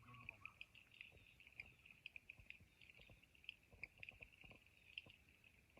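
Faint natural chorus of small creatures chirping: a steady high chirring with short chirps repeating throughout, and scattered small clicks and ticks.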